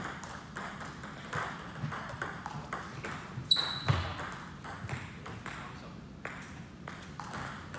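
Table tennis ball clicking off the paddles and table during play: a string of sharp, light taps, with one brief ringing ping about three and a half seconds in.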